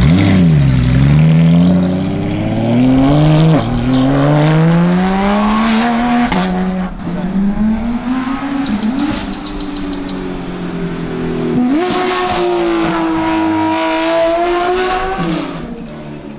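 Porsche 911 GT3 RS's naturally aspirated flat-six, fitted with a Dundon Motorsport megaphone full exhaust, accelerating hard away from a standstill. Its pitch climbs in long pulls broken by sudden drops at the upshifts, about 3.5 and 6 seconds in, and it pulls again later before fading as the car recedes.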